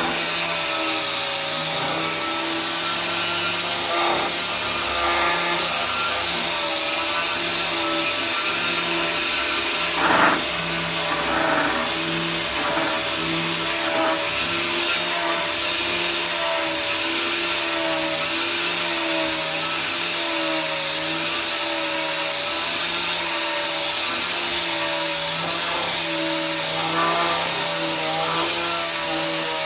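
Electric power sander running steadily on wood, its motor hum wavering slightly in pitch as it is worked over the surface. One short knock about ten seconds in.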